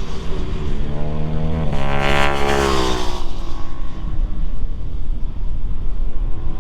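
Motorcycle engine running hard on a race track, its pitch climbing and then dropping about two to three seconds in, over a steady low rumble.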